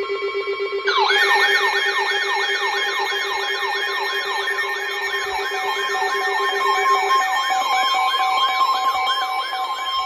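Several weather alert radios sounding their alarms at once for a severe thunderstorm warning. A low pulsing tone with high steady tones over it runs until about seven seconds in. From about a second in, a siren-like warble joins, sweeping up and down about two to three times a second.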